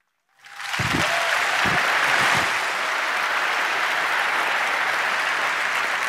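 Large audience applauding. It starts out of a brief silence and swells within about half a second, then holds steady.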